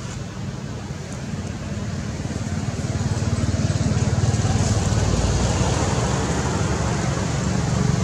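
A motor engine humming steadily, growing louder over the first few seconds and then holding.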